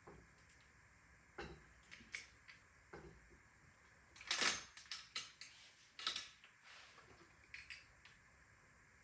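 Small metal bicycle parts and tools being handled while an old bike is taken apart: scattered light clinks and rattles, with the loudest rattle about four and a half seconds in.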